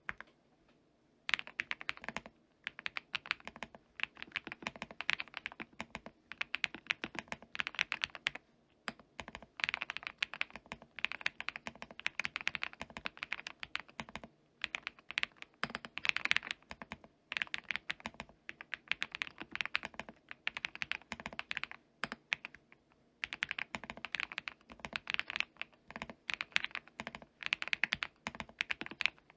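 Typing on a QK65 custom mechanical keyboard with an aluminium plate, lubed Lumia Matcha V3 Pro 58 g switches, Cherry-profile PBT keycaps and case, PCB and PE foam. Fast keystrokes come in runs, starting about a second in, with a few short pauses between runs.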